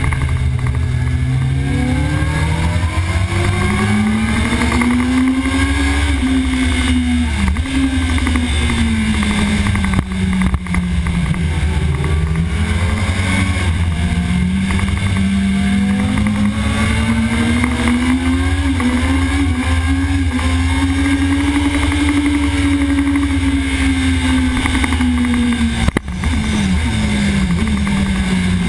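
Sport bike engine heard from onboard at racing speed, its pitch climbing and falling again and again as the rider opens and closes the throttle through corners, with abrupt breaks in pitch at gear changes, over a heavy low rumble.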